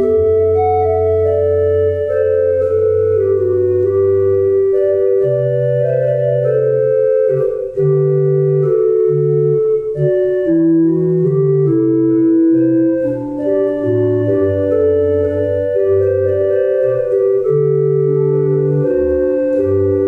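Organ playing slow music: sustained chords that change every second or so over held bass notes.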